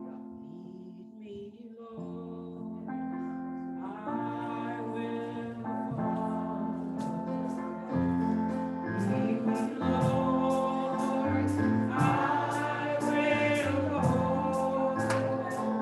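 Live gospel music: held keyboard chords build up, then a steady drum beat comes in about six seconds in, and voices sing along.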